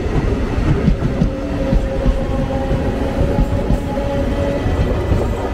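Passenger train coaches rolling past on the track, the wheels knocking irregularly over the rails, with a steady hum through much of it.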